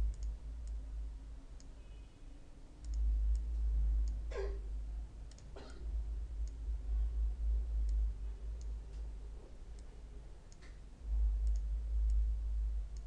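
Computer mouse clicking now and then over a strong low hum, with two short falling swishes about four and a half and six seconds in.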